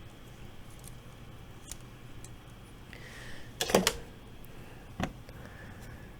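Faint clicks and taps of plastic model-kit parts being handled, the Gundam's skirt armour being pressed back on, with one sharper click about five seconds in.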